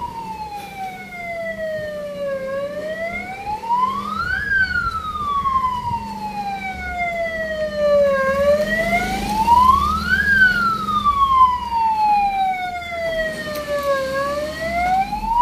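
Ambulance siren wailing in slow cycles, each a quick rise in pitch followed by a longer fall, about every six seconds.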